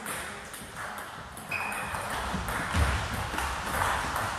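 Table tennis doubles rally: the celluloid ball clicking back and forth off bats and table in quick succession, with a brief high squeak about a second and a half in.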